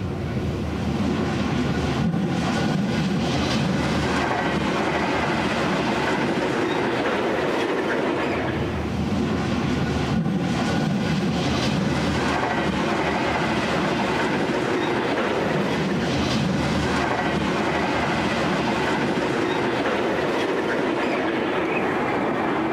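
Five diesel locomotives running light as one consist (three EL class units, GM10 and 42103) pass close by, engines running, with wheels clacking over rail joints now and then. The sound swells in the first second and then stays steady.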